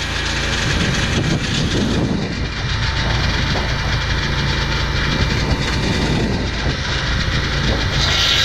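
Portable swing-blade sawmill running with the blade out of the wood: a low, uneven mechanical noise with rattling. The high sawing hiss stops just as it begins and comes back near the end as the blade re-enters the cut.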